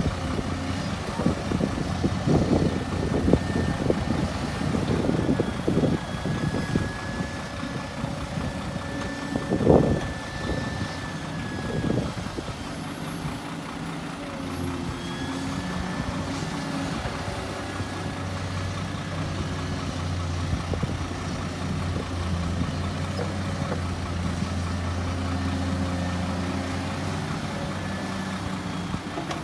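Heavy diesel machinery working: irregular knocks and clatter for the first dozen seconds, with one loud thump about ten seconds in, then a diesel engine running steadily.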